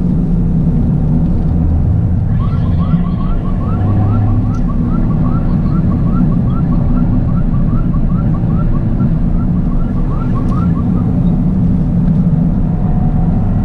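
Toyota GR Yaris's turbocharged 1.6-litre three-cylinder engine running steadily under way. From about two seconds in, a short high chirp repeats about three times a second for roughly nine seconds.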